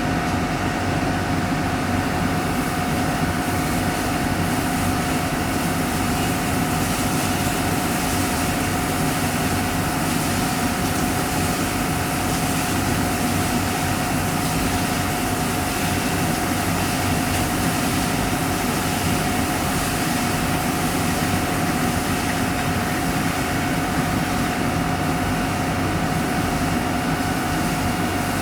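Well-drilling rig's engine running steadily at a constant speed, with a steady whine over the low drone.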